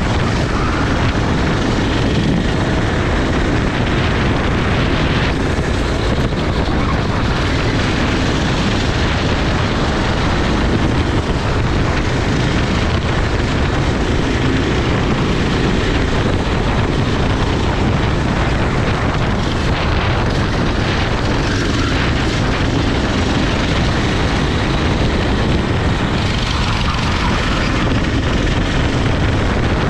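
Go-kart engine running hard through a race lap, its pitch rising and falling, with heavy wind and engine noise throughout.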